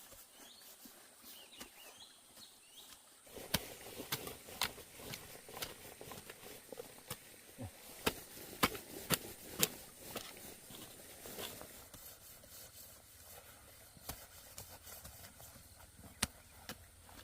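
Irregular sharp knocks and taps, densest from about three and a half to ten seconds in, then sparser.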